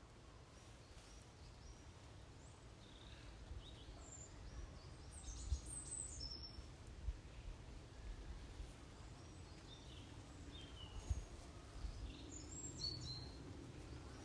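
Faint ambience of birds chirping in scattered short bursts over a steady low rumble, with a few soft low thumps.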